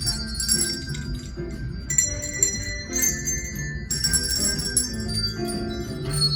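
A handbell ensemble playing a Christmas tune: bells struck one after another in a melody, each ringing on with bright, high overtones.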